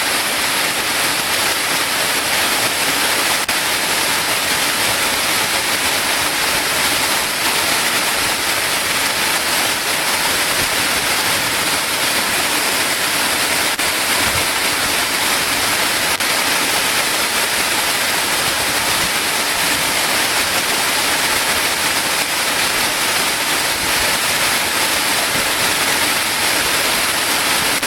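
Waterfall pouring steadily, an even, unbroken rush of falling water with a strong hiss.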